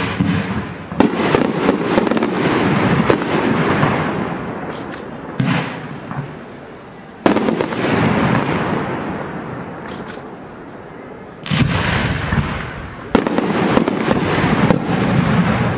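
Aerial fireworks shells bursting: a series of sharp bangs a second or several seconds apart, each followed by a fading echo and fine crackling.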